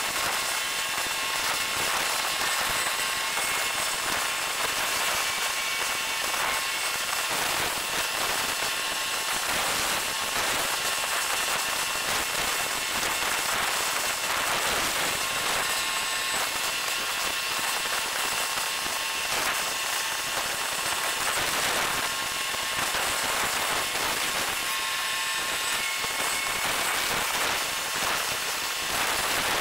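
Steady, dense crackling hiss with a few faint high whistling tones: the sped-up ambient sound of a time-lapse recording at a harbour quay.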